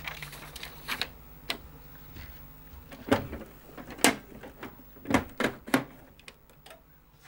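A series of irregular clicks and knocks, the loudest a cluster about three to six seconds in, over a faint low hum.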